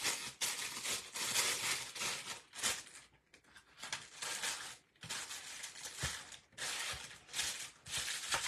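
Clear plastic piping bag crinkling and rustling as it is handled and the spackle filling is pressed down inside it, in irregular spells with short pauses.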